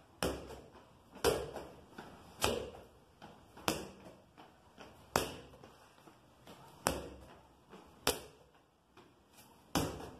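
A handball bounced on a tiled floor while dribbling, a sharp bounce about every second and a half, each ringing briefly in a bare small room.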